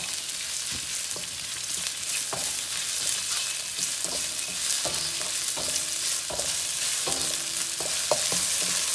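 Chopped binahong (Madeira vine) stems, shallots and garlic sizzling in hot oil in a steel wok, stirred with a wooden spatula that scrapes across the metal every second or so.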